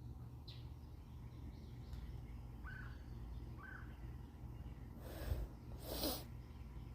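A few faint, short bird chirps, two of them small arched notes about a second apart. Near the end come two louder breathy noises in quick succession, like a person breathing out heavily, over a low steady background hum.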